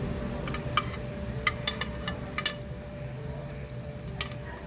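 Kitchen utensil clinking against cookware or dishes: about eight short, sharp clinks, several close together in the first half and one more near the end, over a steady low hum.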